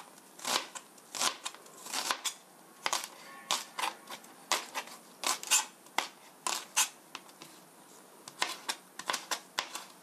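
Chef's knife mincing an onion on a cutting board: quick, uneven chops, about two or three a second, with a pause of about a second past the middle.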